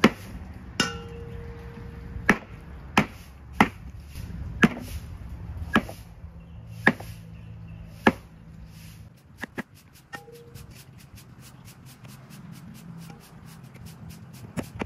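Large kitchen knife chopping through a raw pig's head into a thick wooden chopping block: about nine hard chops roughly a second apart, then quieter cutting with light taps of the blade and one last hit near the end.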